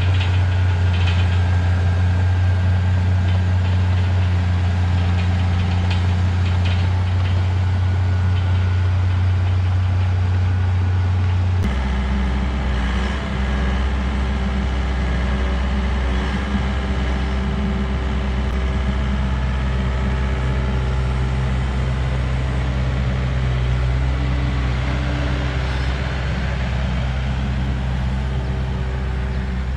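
Diesel engine of heavy earth-moving equipment running steadily under work. About twelve seconds in, the sound changes abruptly to a lower, deeper engine note.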